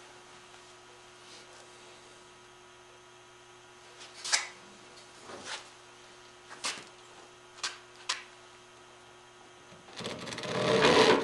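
Steady low hum with a few light clicks and knocks of tools and wood being handled, then near the end a hand saw starts cutting into wood, building up in loudness.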